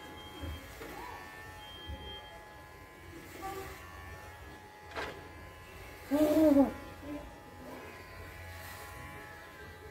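Electric hair clippers buzzing steadily as they cut short hair. A sharp click comes about five seconds in, and a brief voice is louder than the clippers about six seconds in.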